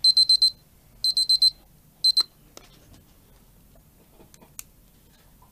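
Taylor digital timer alarm beeping: high, quick beeps in groups of four, about one group a second, cut off partway through the third group a couple of seconds in, then a few faint taps. The alarm marks the end of a partial-interval recording interval, the cue to record whether the problem behavior occurred.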